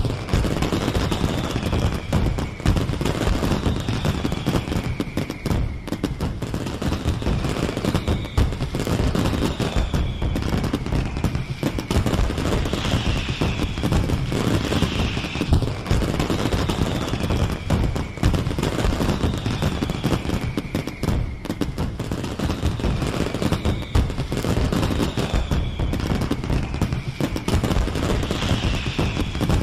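Fireworks display: a dense, continuous barrage of crackling bangs, with high whistles that glide down in pitch every couple of seconds.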